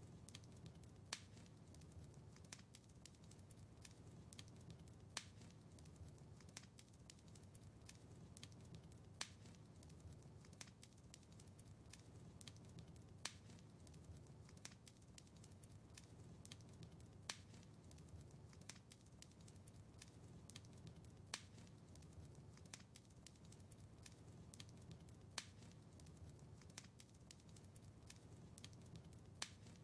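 Faint crackling wood fire in a fireplace: a steady low rumble of burning with constant small crackles and a sharper pop about every four seconds.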